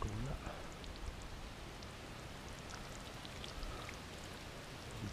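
Shallow muddy water sloshing and dripping as an arm gropes through it, with many small drips and splashes and a few low thuds of water movement right at the start.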